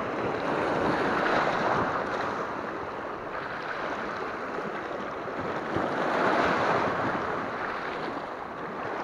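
Small sea waves washing and swirling over shallow rocks, a steady wash that swells twice: about a second in and again around six seconds in.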